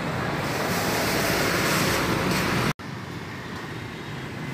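Steady rushing noise of street traffic and wind. It cuts out suddenly about two-thirds through and comes back quieter.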